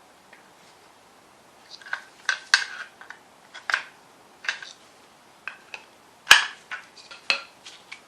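Metal tool working a seal out of an A-series engine's bell housing: irregular sharp metallic clicks and knocks, starting about two seconds in, with the loudest knock about six seconds in.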